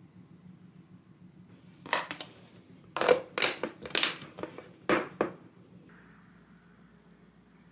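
Plastic locking lid of a glass food container being pressed on and its clip tabs snapped shut: a quick series of sharp snaps and clacks over about three seconds.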